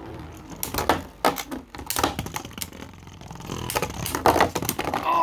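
Two 3D-printed Beyblade spinning tops, Shatter and Doomsday, clashing in a stadium: rapid, irregular hard plastic clacks and rattles of repeated collisions.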